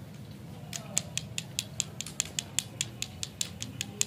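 A rapid, even series of sharp clicks, about five a second, starting about a second in, over a low steady hum.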